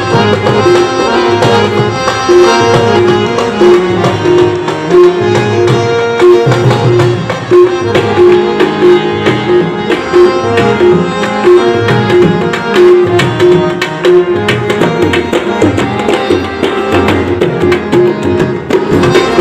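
Background music with a steady drum beat under a melody.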